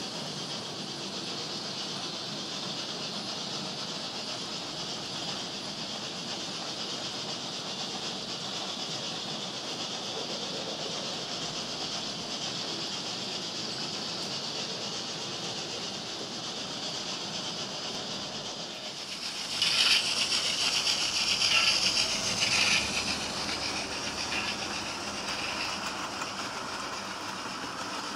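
HO-scale model train running on a layout, a steady whirring and rumbling hiss. About twenty seconds in, a louder hissing burst with clicks lasts some three seconds and then fades back.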